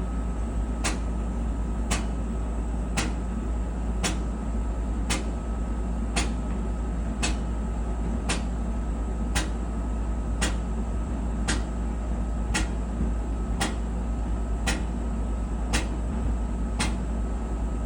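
Whirlpool clothes dryer running with a steady low hum and rumble, and a sharp knock repeating evenly about once a second. The cause of the knocking is uncertain to the owner, who suspects the drum, a drum support roller or the idler pulley.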